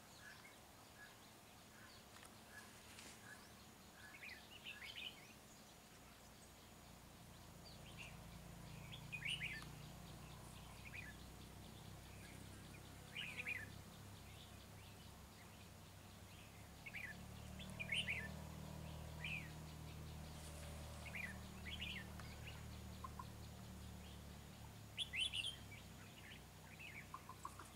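Short chirping calls of red-whiskered bulbuls, scattered every second or two, with a faint low hum underneath.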